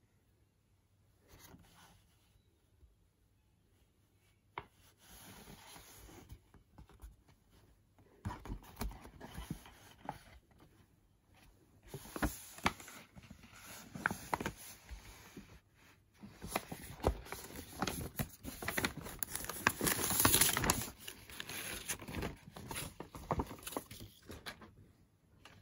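Paper shopping bag crinkling and rustling as it is handled, with scattered taps and scrapes. The rustling is faint at first and loudest about twenty seconds in.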